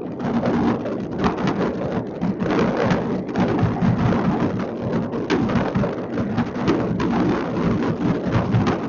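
Many fireworks going off at once: a dense, unbroken crackle of pops and bangs with no let-up.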